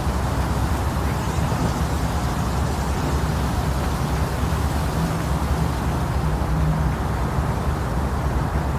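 Steady womb-sound noise for lulling babies to sleep: an even, unbroken rumbling hiss, heaviest in the low end.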